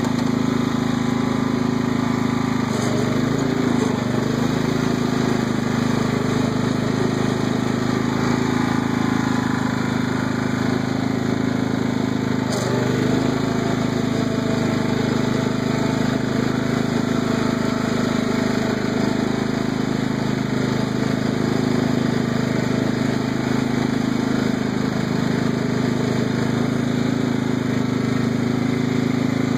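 Craftsman riding lawn tractor's engine running steadily as the tractor is driven along.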